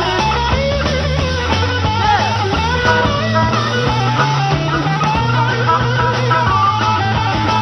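Rock band playing live: an electric guitar lead with bent, sliding notes over bass guitar and drums.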